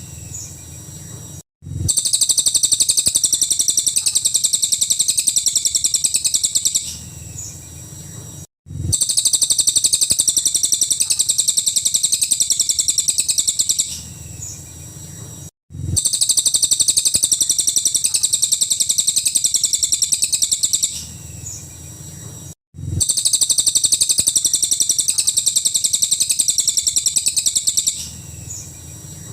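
Cililin bird song in 'full nembak' style: a dense, very rapid run of high-pitched shooting notes lasting about five seconds. It is followed by a softer pause and a brief cut, and the same phrase repeats about every seven seconds, as in a looped masteran tutor recording.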